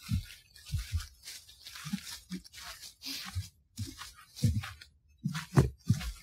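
Footsteps crunching through dry leaves on a forest floor: short rustling crunches, each with a dull low thump, about two a second in an uneven walking rhythm. The audio is heavily noise-reduced, so it sounds choppy, with dead gaps between steps.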